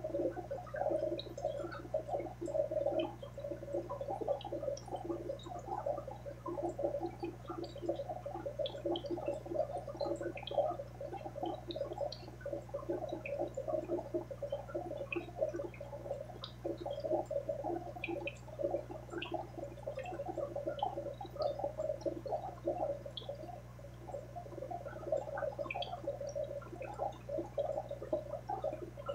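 Aquarium water bubbling and gurgling steadily, with small pops, over a low steady hum.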